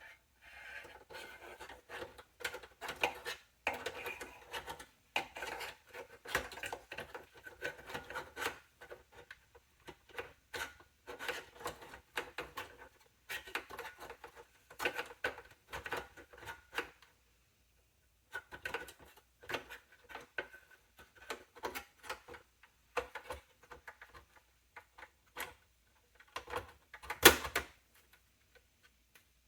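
Hands working on a small-form-factor desktop PC: a busy run of clicks, scrapes and rattles of metal and plastic parts being handled. There is a short pause about seventeen seconds in and one sharp, loud click near the end.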